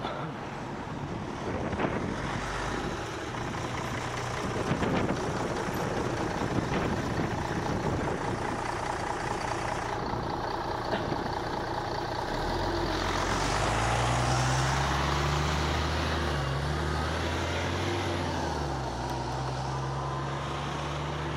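Wind and riding noise on an action camera's microphone, then from about halfway a motor vehicle's engine running steadily close by, a low hum that swells for a couple of seconds and then holds.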